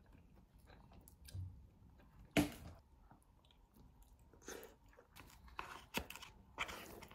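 Faint chewing and mouth sounds of a person eating a pan-fried gyoza dumpling, with a sharper bite sound about two and a half seconds in and a few small clicks near the end.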